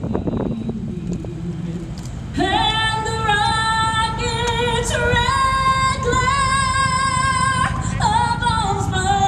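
A woman singing long held notes with vibrato, beginning about two and a half seconds in, over a steady low rumble.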